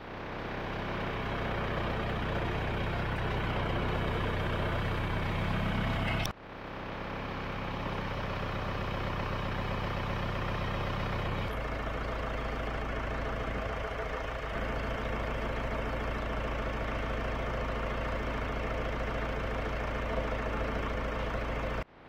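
John Deere front-loader tractor's diesel engine running steadily, its loader holding up the sagging middle of a beam. The sound breaks off briefly about six seconds in, and from about halfway the engine's note is deeper and stronger.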